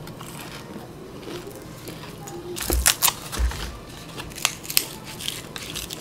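Raw Korean green onion (daepa) stalks handled and torn apart by hand, giving crisp snapping and tearing clicks. The loudest cluster comes about three seconds in, with two dull knocks, and a few sharper snaps follow.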